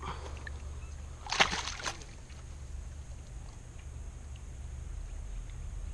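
Water splashing briefly in the rocky shallows as a hooked bass is reached for and grabbed by hand, with the loudest splash about a second and a half in. A low steady rumble runs underneath.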